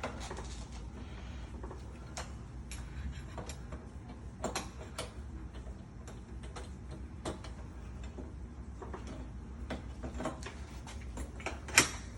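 Irregular small metallic clicks and knocks from hand work on door lock hardware, with one sharper knock near the end, over a steady low hum.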